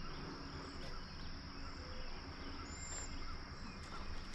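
Faint outdoor ambience: a steady high insect drone, with one short high bird chirp about three seconds in.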